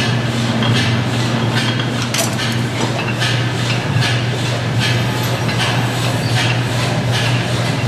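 Overhead line shafting of a belt-driven machine shop running: pulleys and flat drive belts turning with a steady low hum and a regular clacking about twice a second.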